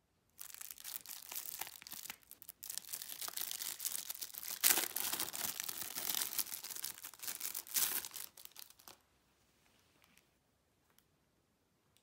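Thin clear plastic bag being torn open and crinkled by hand to free a plastic SD-card case. The dense crackling lasts about nine seconds, with two louder rips, then stops.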